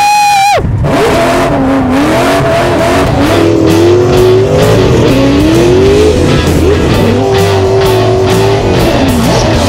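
A drift car's engine revving up and falling back again and again as it slides, mixed with rock music with guitar. A passenger gives a short loud whoop at the very start.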